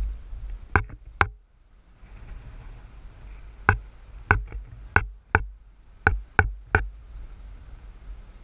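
Sharp knocks and clicks at irregular intervals, about ten, several in quick pairs, over a low steady rumble: an action camera or its mount rattling as it is jolted on a moving vehicle.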